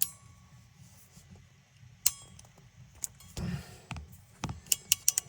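Scattered sharp metallic clicks and handling noise from a hand crimping tool being worked on a wire connector, with a short rustle about three and a half seconds in and a quick run of clicks near the end.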